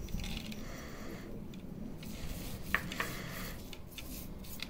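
A hand sprinkling coarse salt over a raw picanha on a wooden cutting board and rubbing it into the meat: a soft, even rubbing with a few light ticks.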